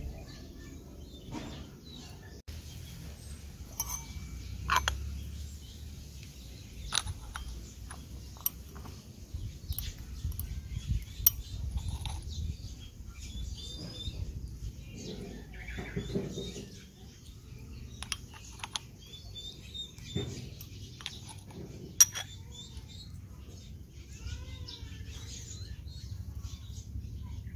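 Scattered light clicks and taps of a small metal spoon against a miniature aluminium pot and ceramic plate as rice is scooped and served, over a low steady rumble. Birds chirp now and then in the background.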